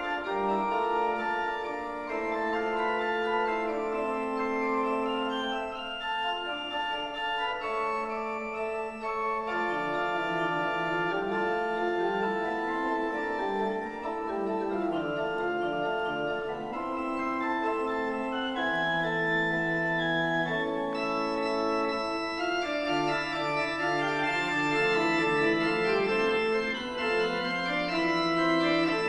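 Rieger pipe organ of ten stops, voiced in the Italian manner, playing a ricercare: several sustained lines move together in counterpoint, and a lower line comes in about ten seconds in.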